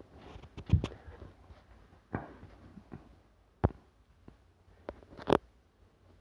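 Handling noise from a phone held close to the body: a few sharp knocks and rubs on the microphone, scattered irregularly, over a faint rustle.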